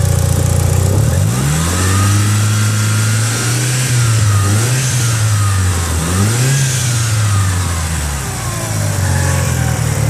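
Mitsubishi Lancer Evolution IX's turbocharged four-cylinder engine idling, then revved up and down in a few blips starting about a second in, settling back to idle near the end. The owner reports strange noises from it since its timing belt was changed.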